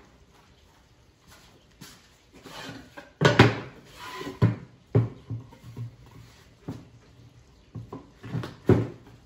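Pine hive-body side boards clattering and knocking against each other and the workbench as they are slid off stacks and picked up, a string of separate wooden knocks and scrapes. The loudest knocks come about three seconds in and near the end.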